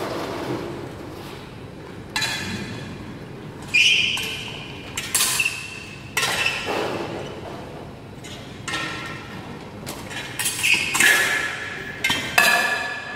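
Steel sparring swords clashing with each other and with a metal buckler: a series of sharp metallic strikes, some ringing on briefly, with a quick flurry of clashes near the end, echoing in a large hard-floored hall.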